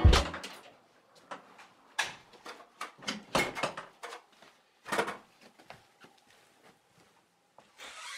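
Scattered knocks, light thuds and rustling from a person moving about a hallway: footsteps, with wooden knocks like a door or drawer being handled; the loudest knocks come about three and five seconds in.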